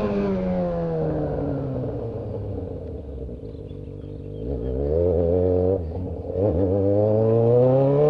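Straight-piped Yamaha XJ6 inline-four motorcycle engine. The revs fall steadily for about four seconds as it slows, with a brief blip and dip around five to six seconds in, then climb steadily as it accelerates again.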